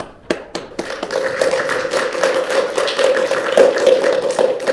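Audience applauding: a few separate claps, which within about a second fill into steady applause.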